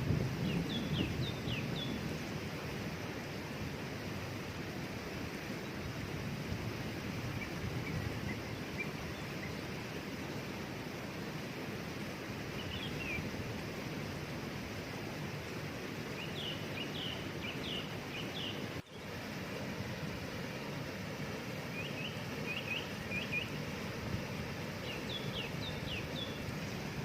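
Waterfall's steady rush of water, with clusters of short, high bird chirps every few seconds. The sound drops out for an instant about two-thirds of the way through.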